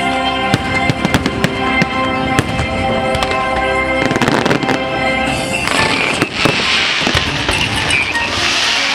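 Fireworks going off over music: sharp bangs and pops through the first half. From about six seconds in, a dense crackling hiss drowns out the music.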